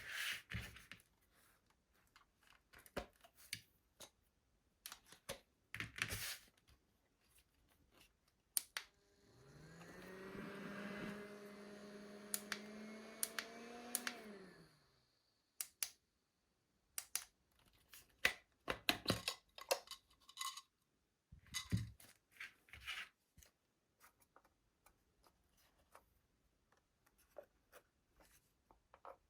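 Handling noises of a small plastic gadget and its packaging: scattered clicks, scratches and crinkles. About nine seconds in, a small electric fan motor hums up to speed, runs steadily for about five seconds, then winds down and stops.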